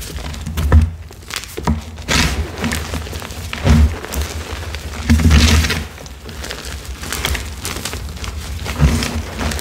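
Crushed gym chalk being pressed and crumbled by gloved hands: several soft thuds as the hands push into the pile, the longest about halfway through, with dry crunching and crackling of chalk lumps and powder between them.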